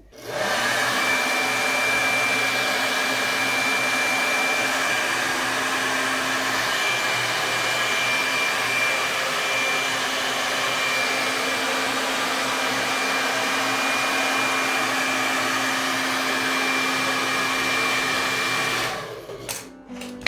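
Hand-held hair dryer blowing steadily, with a thin high whine over the rush of air, then switched off about a second before the end.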